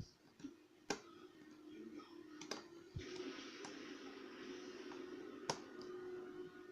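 Lock picking: a few sharp metallic clicks of a hand pick and tension wrench working in a pin-tumbler lock, over a steady low hum.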